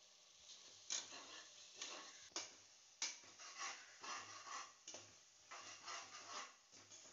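Perforated steel ladle stirring and scraping thick masala in an aluminium pressure cooker: faint, irregular scrapes and clinks, one every half second to a second.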